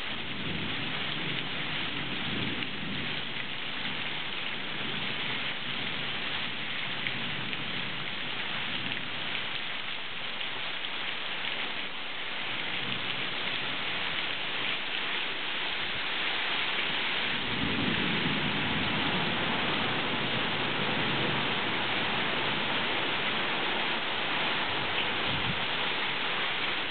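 Heavy downpour in a thunderstorm: a steady hiss of rain, growing slightly heavier past the middle, with a low rumble of thunder about two-thirds of the way through and a fainter one near the start.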